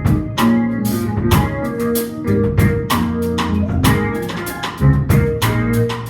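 Live gospel worship band playing an instrumental introduction with drum kit, guitar, bass and keyboard, a steady beat with regular drum hits.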